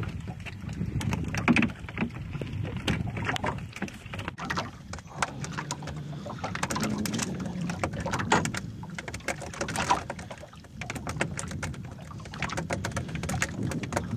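Small wooden fishing boat at sea: water lapping against the hull over a low steady rumble, with scattered clicks and knocks on board.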